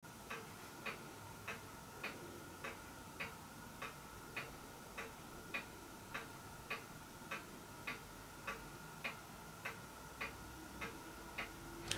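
Faint, steady ticking of a clock, a little under two ticks a second.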